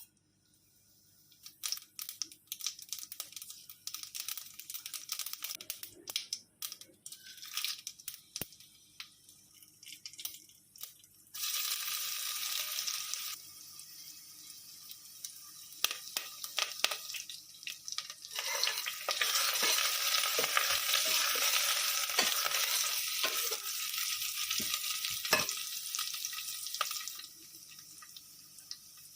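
Tempering spices and garlic frying in hot oil in a pan, crackling and popping, with stirring knocks. Loud sizzling comes in two spells, a short one partway through and a longer one in the second half, as more ingredients hit the hot oil.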